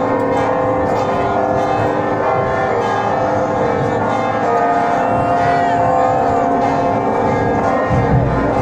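Church bells ringing: many overlapping bell tones sustained together in a continuous peal, with a brief low thud near the end.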